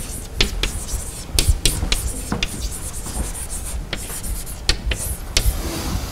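Chalk writing on a blackboard: an irregular run of sharp taps and short scratching strokes.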